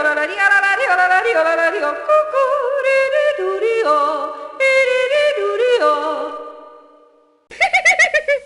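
Background music with a melodic line that fades out about seven seconds in, then a short burst of a different piece of music near the end.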